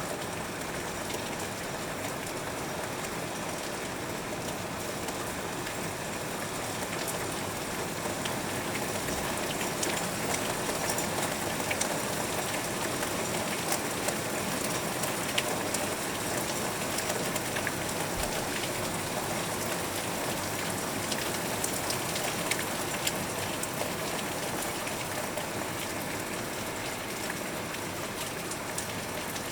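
Heavy rain falling steadily, heard through a window, with many small raindrop ticks on the glass.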